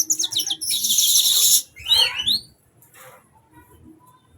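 Caged sunbird in full song: quick high chirps running into a dense, fast high trill for about a second, then a few rising-and-falling whistled notes about two seconds in, with only faint sounds after.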